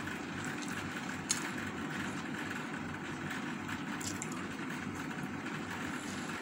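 Steady low mechanical hum, with a few faint clicks of chewing and of fingers working in rice.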